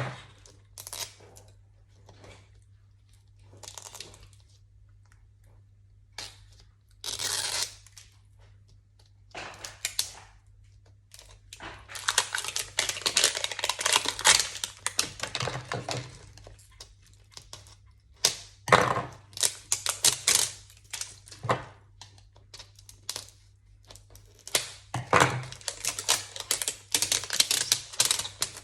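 Plastic packaging of a collectible miniature being torn and crinkled open by hand, in irregular bursts with scattered clicks and a longer run of crinkling about twelve seconds in. It is a very satisfying sound.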